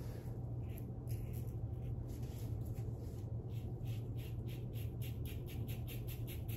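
Carbon CX safety razor with a Nacet blade scraping through neck stubble in short strokes, sparse at first and then quicker, about four strokes a second in the second half, over a steady low hum.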